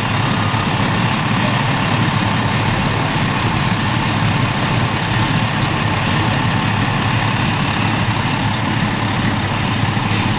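Fire engine's diesel engine idling close by, a loud steady low running sound.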